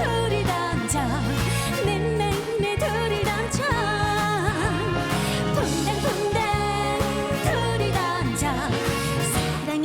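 Korean trot song: a woman singing with a wavering vibrato over a band accompaniment with a steady bass beat.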